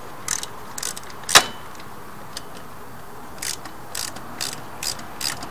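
Small ratchet wrench clicking in short, irregular runs as the bolts on a motorcycle's oil filter cover are loosened, with one louder, sharper click about a second and a half in.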